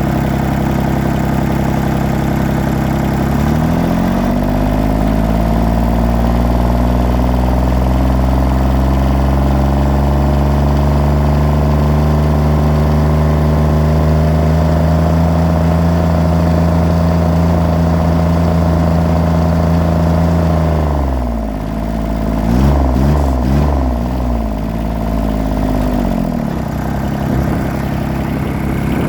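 John Deere 332 garden tractor's three-cylinder diesel engine running with misfires, typical of it not yet being fully warm. Its note drops about four seconds in and slowly climbs, falls sharply about two-thirds of the way through, wavers unevenly for a few seconds, then picks up again near the end.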